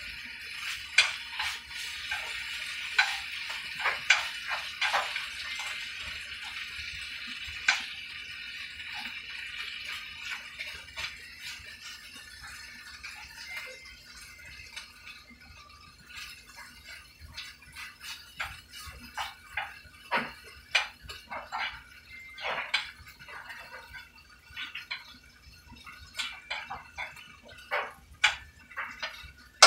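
Steak pieces sizzling in a frying pan while a spatula scrapes and taps against the pan. The sizzle is strongest at first and dies down after about ten seconds, leaving mostly the scattered clicks of the utensil.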